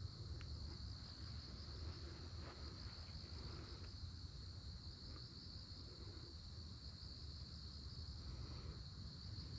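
Faint, steady high chirring of insects.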